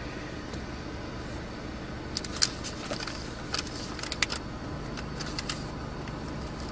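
Paper documents being handled and leafed through: a cluster of crisp rustles and clicks starting about two seconds in, over a steady low vehicle hum.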